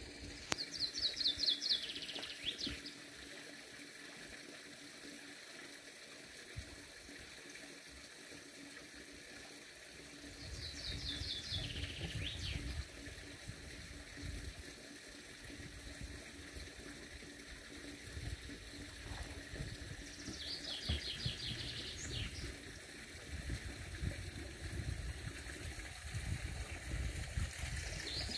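A songbird singing the same short song over and over, about every ten seconds: a quick run of high notes falling in pitch, ending in a brief flourish. Three songs, with a fourth starting at the end.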